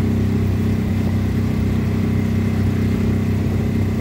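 Motorboat engine running steadily at constant speed, an even low drone with no change in pitch.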